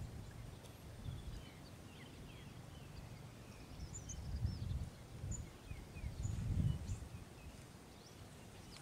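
Faint birds chirping in the background: scattered short high chirps, with a few low muffled rumbles about halfway through and again a little later.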